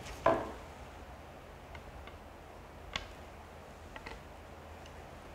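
Billiard cue's steel joint being fitted together: a short ringing clink as butt and shaft meet near the start, then a few faint, irregular clicks as the joint is twisted home.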